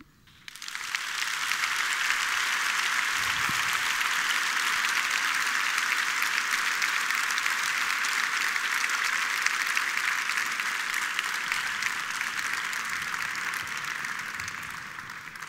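Large audience applauding steadily. The clapping builds up about half a second in and fades away near the end.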